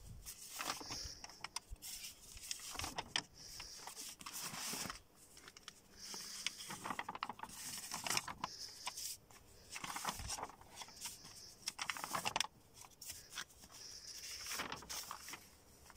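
Sheets of drawing paper rustling and sliding against each other as a stack is leafed through by hand, in repeated short bursts.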